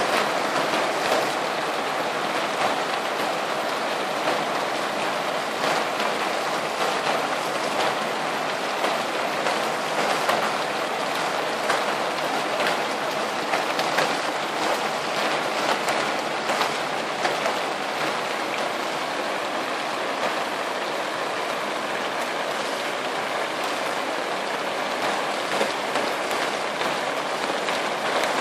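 Hail and rain falling steadily: a dense, even pattering sprinkled with many small sharp hits.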